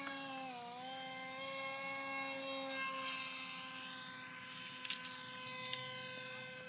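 Motor of a small RC foam model F-35 running in flight: a steady whine that dips briefly in pitch about half a second in, then holds even. A couple of faint clicks near the end.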